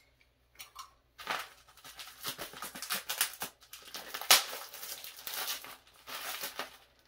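Clear plastic wrapping crinkling and tearing in irregular rustles as it is pulled off a 5-micron polypropylene sediment filter cartridge, starting about a second in.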